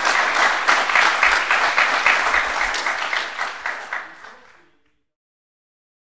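Audience applauding at the end of a lecture, a dense patter of many hands clapping that dies away about four seconds in.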